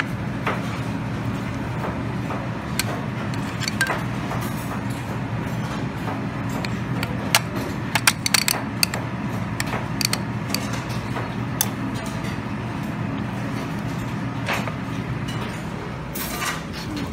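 Light clinks and clicks of a metal serving spoon against a small plastic sauce cup and a plate as wasabi is scooped, a cluster of them around eight seconds in, over a steady low hum.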